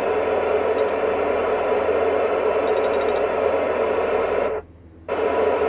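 Hissy FM radio signal from an amateur transceiver's speaker, received through the ISS's FM repeater: a noisy, garbled transmission that cuts off abruptly about four and a half seconds in and opens again half a second later.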